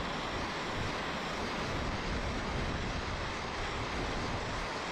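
Handheld gas blowtorch flame running with a steady rushing hiss, heating a copper Yorkshire fitting evenly all round so its built-in solder ring melts and seals the joint.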